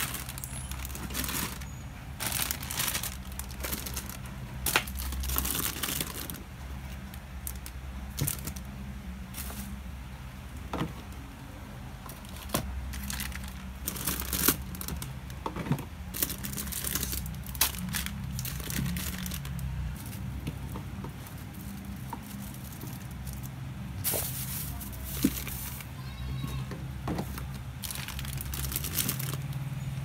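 Plastic produce bags crinkling and rustling in irregular bursts as bagged vegetables are handled and packed onto refrigerator shelves. A steady low hum runs underneath.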